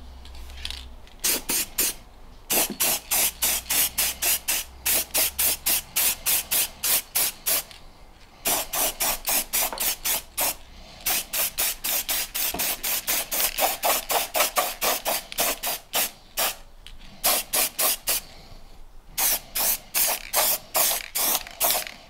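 Aerosol spray-paint can spraying black paint in many short hissing bursts, about three a second, with a few brief pauses.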